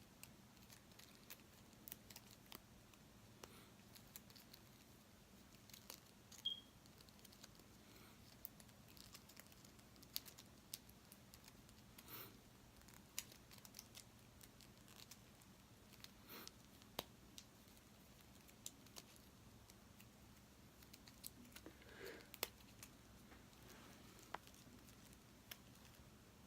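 Near silence, broken by faint scattered clicks and short rustles from a USB charging cable and its packaging being handled.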